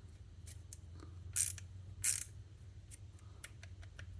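Klein 15-in-1 ratcheting screwdriver being worked by hand: a scattering of light ratchet clicks, with two louder clicks about one and a half and two seconds in.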